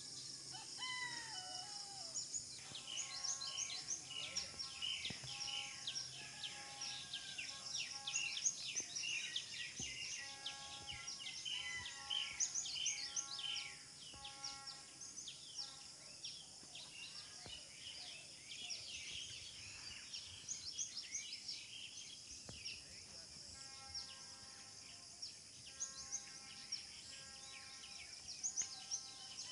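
Many birds chirping and calling in quick short notes over a steady insect drone. The chirping is densest in the first half and thins out about halfway through.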